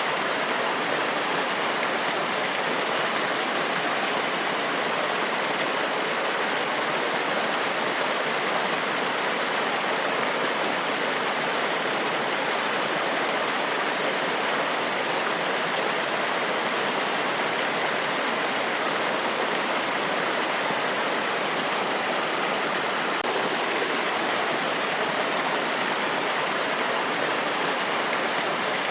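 Steady rush of water from a small waterfall or cascading stream, an even hiss with no breaks or changes.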